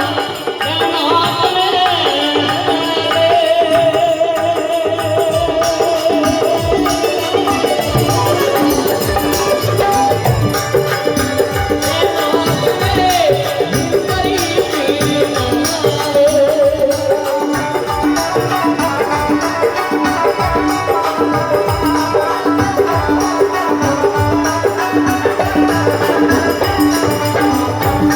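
Marwari folk music: a wavering melody line with held notes over steady drum and rattle percussion.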